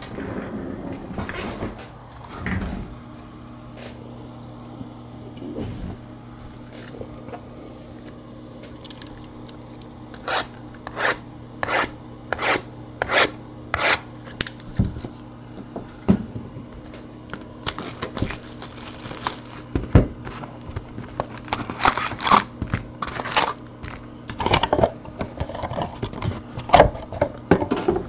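Cardboard trading-card hobby boxes being handled, shifted and set down on a table: a run of sharp knocks and taps, about two a second for a few seconds midway, then a denser cluster near the end, over a steady low hum.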